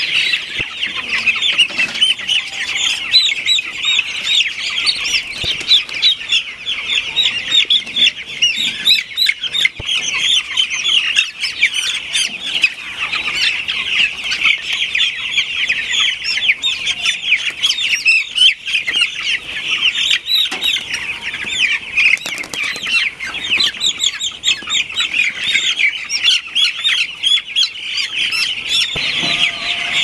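A large flock of broiler chicks peeping without pause, a dense chorus of many overlapping short, high cheeps.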